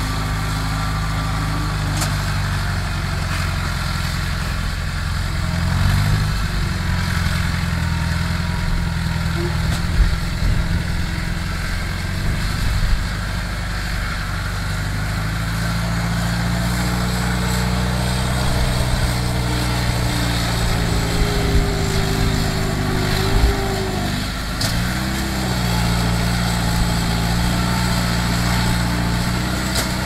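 Engine of a tracked rice harvester, converted to haul sacks of rice, running under load as it crawls through mud. Its pitch dips and rises a few times, with an occasional knock.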